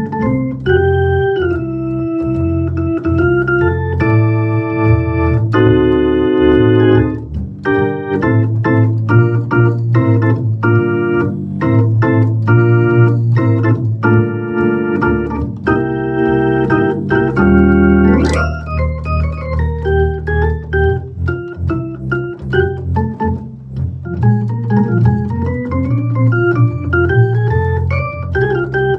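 Hammond XK-1c organ played solo: chords over a moving bass line, then a fast upward glissando about 18 seconds in, followed by quick single-note runs rising and falling.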